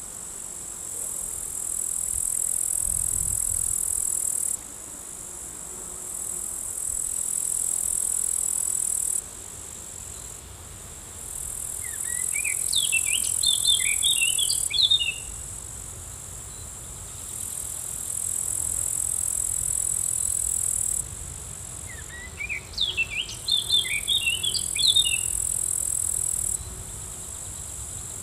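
High, steady insect trilling that cuts in and out in blocks of a few seconds. A songbird's short phrase of quick chirping notes comes twice, about twelve and twenty-two seconds in.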